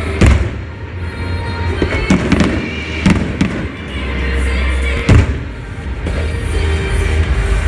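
Fireworks shells bursting with sharp, loud bangs, one just after the start and another about five seconds in, with smaller pops and crackles between, over music playing along with the show.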